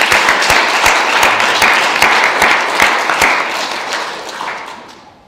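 A small audience applauding, steady at first and then dying away near the end.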